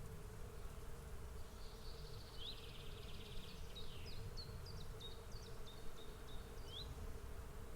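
A swarm of bees humming in a steady drone. A bird chirps a run of short high notes over it for several seconds in the middle.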